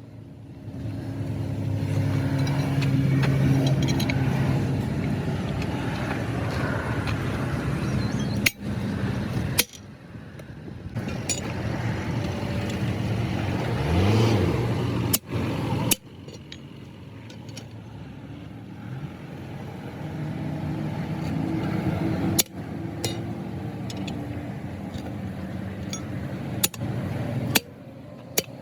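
A vehicle engine running, with a brief rise in pitch around the middle, broken by several sharp clicks and sudden cuts.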